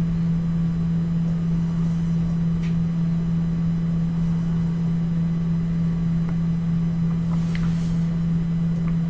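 Steady low electrical hum with background hiss, unchanging throughout, and a couple of faint ticks.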